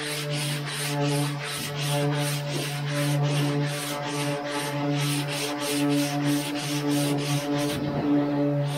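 Electric orbital sander running with a steady hum while a hand sanding block rasps back and forth over cured body filler in quick, even strokes. The rasping stops briefly near the end while the sander keeps running.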